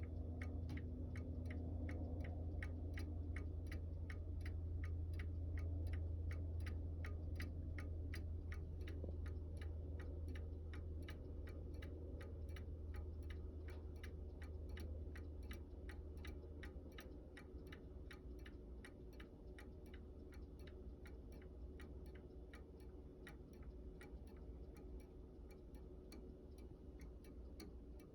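Antique Seth Thomas four-rod chime clock ticking steadily, about two ticks a second. Underneath, the low ringing of its chime rods slowly dies away over the first half.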